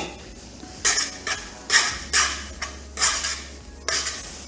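Tongs tossing fresh egg tagliolini in a metal frying pan of tomato sauce: a run of short hissing, scraping swishes, roughly two a second, as the pasta is turned in the hot pan.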